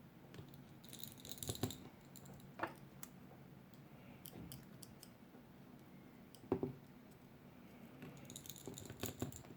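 Faint, irregular small clicks and light taps of a precision screwdriver driving the tiny screws of an iPhone's earpiece speaker bracket.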